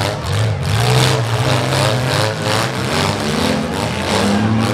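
Engines of six-cylinder demolition derby cars running and revving up and down, with a rapid, uneven pulsing.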